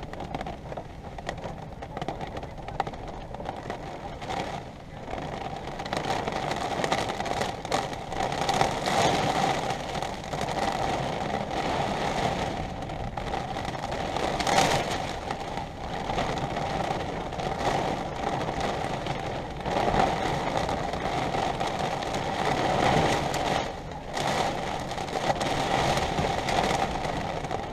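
Thunderstorm wind and rain heard from an RV: a crackling patter with gusts that swell and fade, and one louder surge about halfway through.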